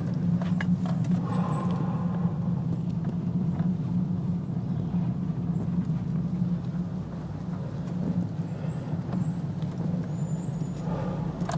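Steady low drone of a car driving, with faint short high chirps now and then.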